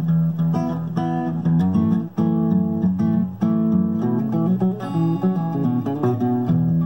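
Solo acoustic guitar playing an instrumental piece in fingerstyle, with a run of individually plucked, ringing notes over a moving bass line.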